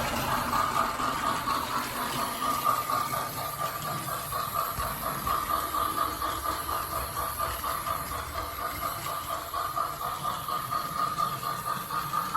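Sound unit of a Plarail clear C62 toy steam locomotive playing a recorded steam-engine chuff through its small speaker, an even, rhythmic chuffing at a few beats a second.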